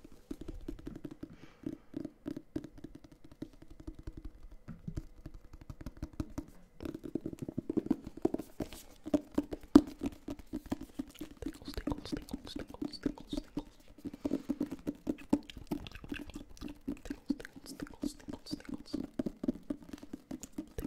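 Fast, aggressive fingertip and fingernail tapping on a hardcover book's cover, held close to the microphone: a rapid, uneven patter of many taps a second, with one louder tap about ten seconds in.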